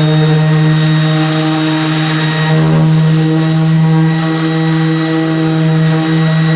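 Electric power sander running steadily against oak wood, a loud hum with a wide hiss over it.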